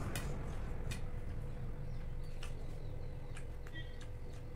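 Eating sounds at a meal: scattered small clicks and smacks, over a steady low background hum.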